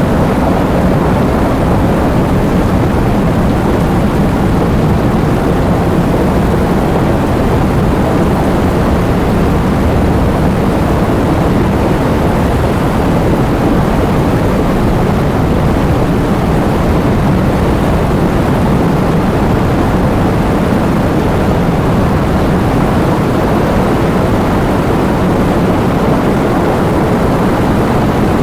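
Heavy rain with wind: a loud, steady, dense rush, heaviest in the low end, with no separate drops or gusts standing out.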